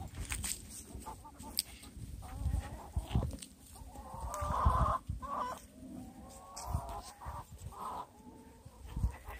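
A flock of backyard hens clucking, with one louder drawn-out call about halfway through and a few shorter calls after it.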